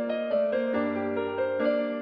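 Background music: piano or electric-piano melody over held bass notes.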